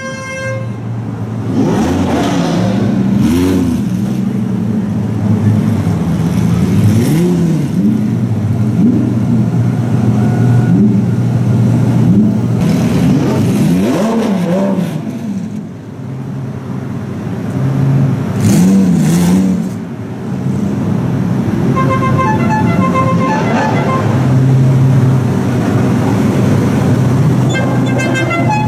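Lamborghini engine idling and revved again and again in short blips, each one rising and falling in pitch. A car horn sounds in quick rapid pulses twice in the last third.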